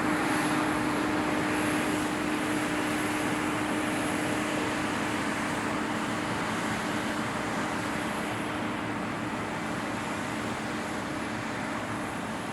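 Combine harvester running steadily: a broad mechanical rush with a constant hum and a faint high whine, growing slightly quieter toward the end.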